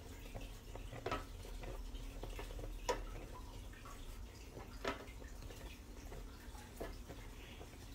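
Milk and sugar mixture simmering on lowered heat in a stainless steel pan while a wooden spoon stirs it: faint bubbling, with a few soft clicks about every two seconds.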